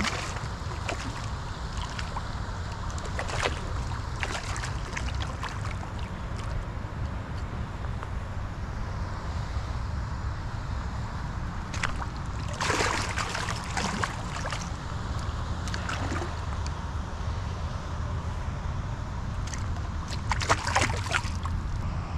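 Hooked largemouth bass thrashing and splashing at the water's surface in several short bursts, the longest about halfway through. Under them is a steady low rumble of wind on the microphone.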